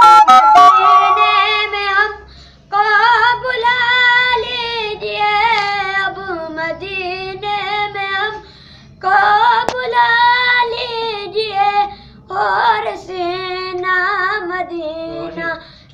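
A boy singing an Urdu naat unaccompanied, in long held, wavering melismatic phrases with brief breaths between them about two and a half, nine and twelve seconds in.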